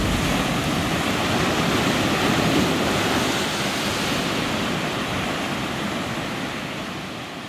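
Ocean surf washing over rocks, a steady rush of water that slowly fades out toward the end.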